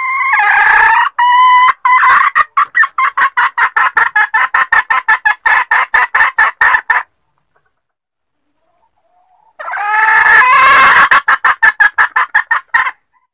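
Junglefowl hen cackling: a rising squawk that breaks into a fast run of clucks, about five a second, for some five seconds. After a pause of about two seconds, a second rising squawk runs into a shorter burst of clucks.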